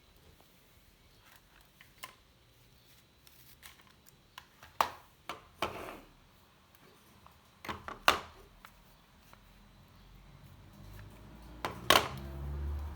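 Handling noise: a few sharp clicks and knocks at irregular intervals, the loudest about five seconds in, eight seconds in and near the end, with a low rumble building over the last few seconds.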